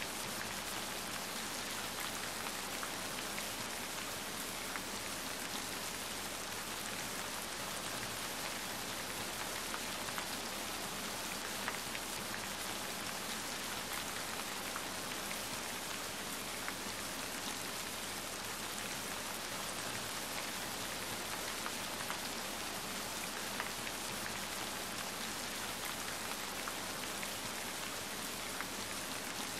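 Steady rain, a dense even patter, with a few scattered sharp pops from a crackling wood fire.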